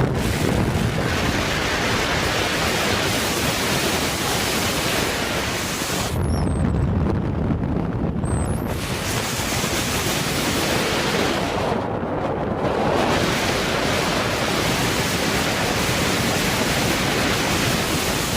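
Loud, steady rushing noise of storm wind buffeting the microphone. The high hiss thins twice, about six and twelve seconds in, leaving a lower rumble.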